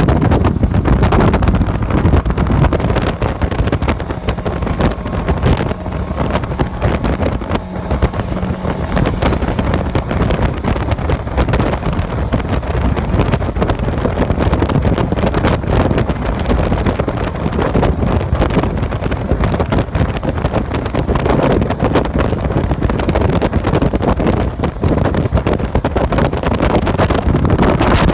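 A motorboat's outboard engine running at high speed over choppy water, with water rushing and strong wind noise on the microphone.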